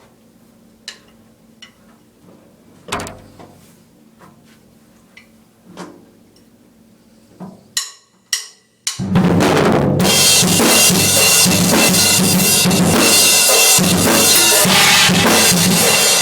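A few scattered soft knocks and clicks, then several sharp clicks, and about nine seconds in a drum kit suddenly starts playing loud and hard, a dense run of rapid beats that carries on without a break.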